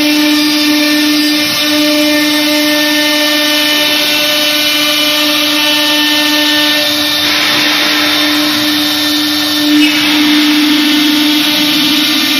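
Air-cooled spindle of an FLDM2030 CNC router running with a steady whine as the bit cuts grooves in an MDF sheet. A rougher cutting noise swells for a few seconds past the middle, with a brief louder bump late on.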